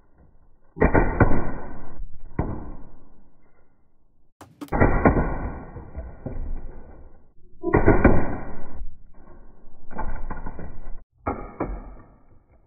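Umarex HDR 50 .50-calibre CO2 pistol firing chrome steel balls into a steel food can: five sudden bangs, each trailing off over a second or more.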